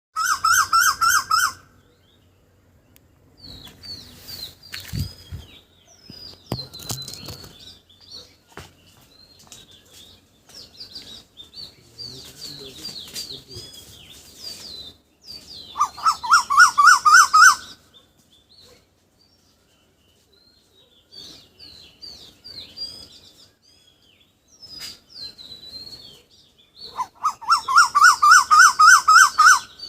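Birds calling: a loud, rapid pulsed call comes in three bursts of about two seconds each, at the start, about halfway through and near the end. Softer, high chirps from other birds fill the gaps between them.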